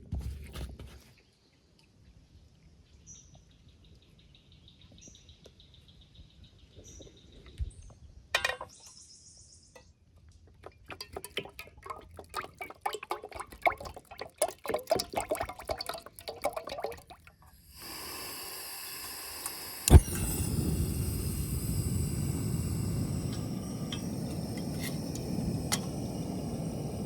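Buffalo rib strips being handled and coated in seasoned flour: a run of rustling and tapping. About twenty seconds in comes a sharp knock, then the steady hissing sizzle of the fish deep-frying in hot oil.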